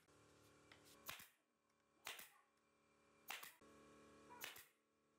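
A nail gun driving brads, four sharp shots about a second apart at an uneven pace, as pine edge trim is fastened to a table top. A faint steady hum runs underneath.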